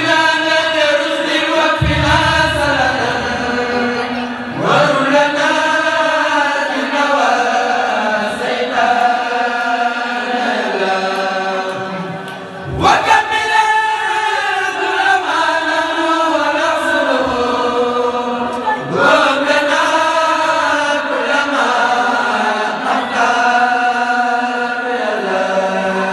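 Khassida chanting: men's voices singing Arabic devotional verse together in long, melodic phrases, a new phrase starting every six to eight seconds.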